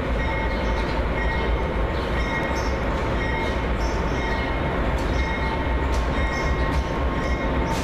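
Light engine move of diesel freight locomotives, with no cars behind them, rolling past: a steady low engine rumble carrying a steady whine, with scattered sharp ticks from wheels on the rails.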